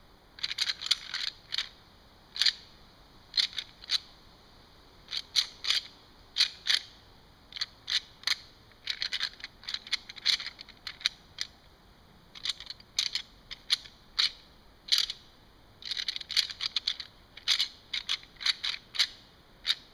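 A deer-hunting rattle bag kneaded between the hands: bursts of sharp, dry clicking and clattering in irregular clusters. It imitates bucks rubbing and sparring their antlers, worked gently as early-season rattling.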